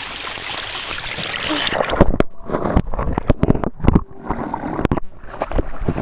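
Small stream water rushing steadily. From about two seconds in come a run of heavy bumps and rumbles on the camera's microphone, mixed with splashing, as the camera is pushed down into the water.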